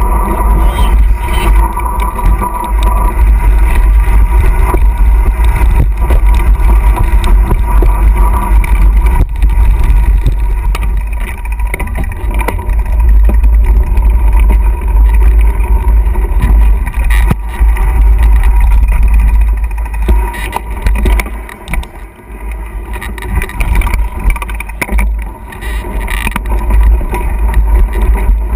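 Heavy wind rumble on the camera microphone as a mountain bike rides a dirt trail, with knocks and rattles from the bike over the rough ground. The rumble eases briefly for a moment about three-quarters of the way through.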